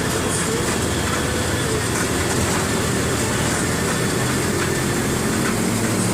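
Mercedes-Benz OF-1721 BlueTec 5 bus's four-cylinder diesel engine running steadily.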